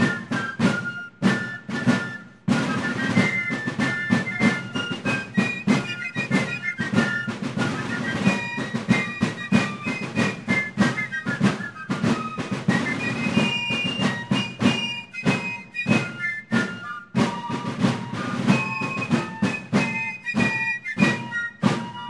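Fifes and field drums playing a military march: a high, quick fife melody over dense, rapid drum strokes.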